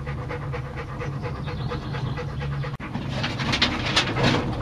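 A dog panting quickly and rhythmically, louder in the second half, over the steady low hum of a moving gondola cable-car cabin.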